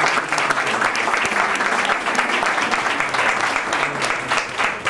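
Crowd applauding, dense clapping that thins near the end, with separate individual claps standing out.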